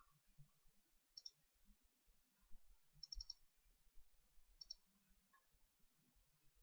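Faint computer mouse clicks, a few in quick pairs and one short run of three or four, over near silence.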